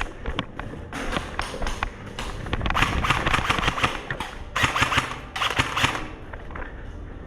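Airsoft rifles firing in rapid full-auto bursts, a fast run of sharp clicks, several bursts in a row with short gaps between them.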